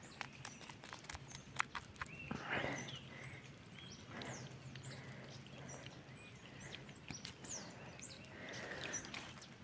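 Quiet scraping and clicking of a knife cleaning a small fish by hand, with short high chirps of birds in the background.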